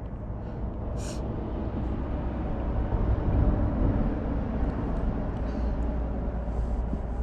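A road vehicle passing: a low rumble that swells to its loudest around the middle and slowly fades. A short rustle about a second in.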